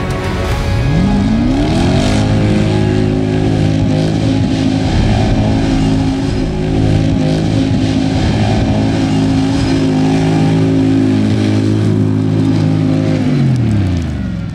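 Engine of a Jeep Wrangler JL-based desert race concept truck revving up over the first couple of seconds, then held at high revs during a fast run on desert gravel, with tyre and gravel noise underneath. The revs drop away near the end.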